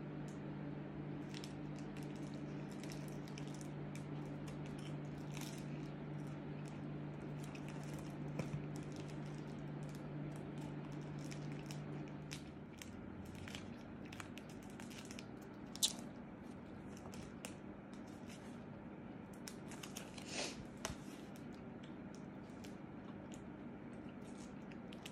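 Steady low electrical hum in a small room, whose lowest tone stops about halfway. Over it come scattered small clicks and crinkles of photo-album pages with plastic sleeves being handled and turned, with one sharper click past the middle.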